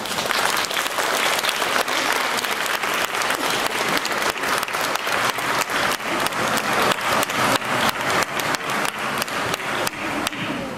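Audience applauding: a dense, even clatter of many hands clapping.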